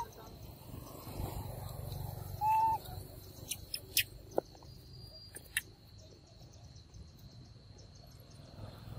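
A short high-pitched animal call, a single arched note, about two and a half seconds in. It is followed by a few sharp clicks.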